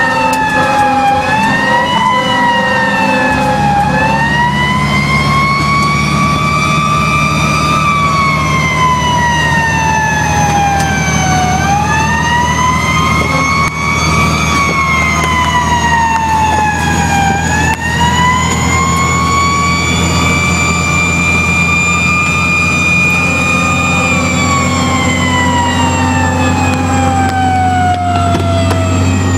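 Fire truck siren wailing, heard from inside the cab, its pitch rising and falling in slow sweeps several seconds long, with a long fall near the end. A steady low drone runs underneath.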